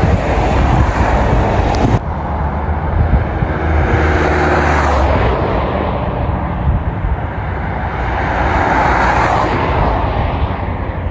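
Cars passing on the road, their noise swelling and fading, over a steady rumble of wind on the microphone.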